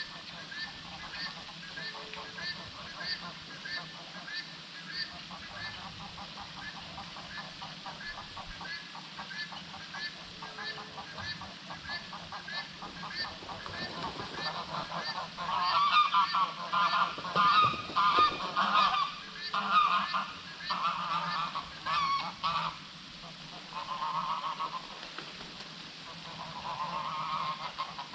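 Loud, goose-like honking calls from a bird, coming in a run of about eight seconds past the middle, then twice more, shorter, near the end. Behind them a steady call repeats about twice a second.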